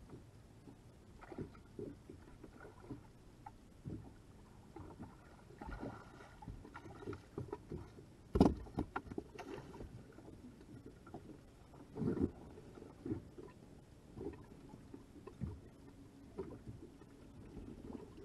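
Water slapping against a small fishing boat's hull, with irregular knocks and thumps on the boat; the loudest is a single sharp knock about eight seconds in.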